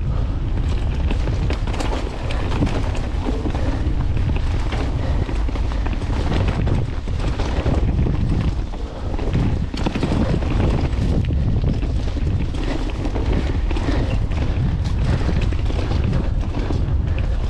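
Mountain bike descending a dirt singletrack: wind buffeting the microphone and the tyres rumbling over the ground, with frequent clicks, knocks and rattles from the bike.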